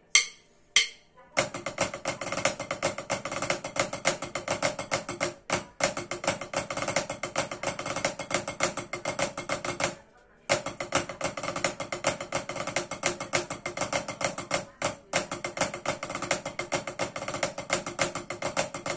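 Wooden drumsticks played on a drum practice pad: two single strokes, then fast, continuous sticking rudiments. The strokes stop briefly about ten seconds in, then resume.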